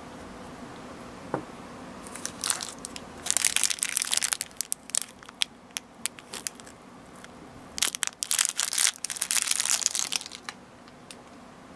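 Thin clear plastic bag crinkling and tearing as it is handled and opened to free a small plastic figure. It comes in two spells of crackling, about two seconds in and again about eight seconds in.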